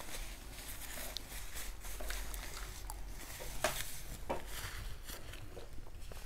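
Handling sounds as food is picked up: scattered small clicks and light rustles, two of them sharper a little past the middle.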